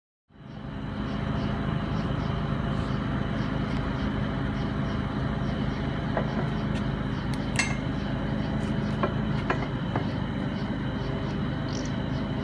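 A motor running steadily, with a few sharp metallic clinks between about six and ten seconds in.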